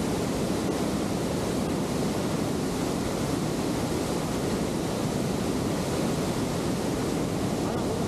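Steady rushing noise of wind on the microphone and moving water, even and unbroken.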